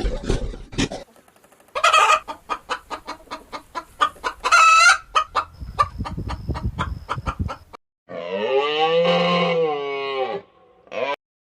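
Chickens clucking in rapid short notes, with a couple of louder squawks. About eight seconds in comes one long pitched animal call that rises and falls over some two seconds.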